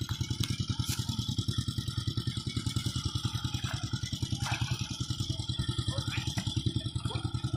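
A small engine running steadily at a fast, even chug.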